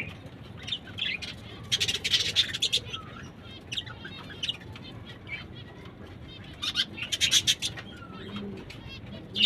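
Small pet parrots, lovebirds and budgerigars, chirping and chattering in rapid high bursts, twice in long runs, with single chirps between. A low cooing call comes near the end.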